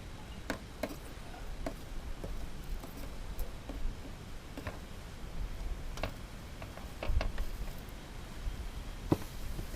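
Scattered, irregular sharp ticks and small pops from battery lead plates melting in a tin-can burner, with a low rumble underneath.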